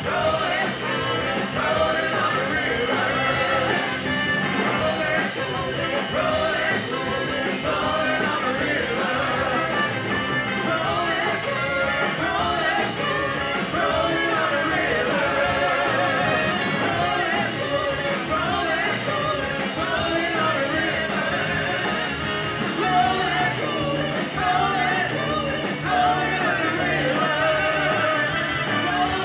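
Live rock band playing a song with several singers, amplified through the club's sound system: electric guitars, saxophone and keyboards under lead and backing vocals.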